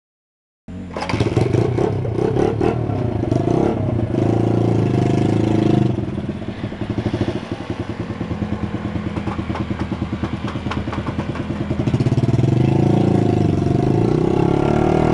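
Honda XR80's small single-cylinder four-stroke engine running. It is revved a few times in the first seconds, drops to a pulsing idle in the middle, and revs up louder again near the end.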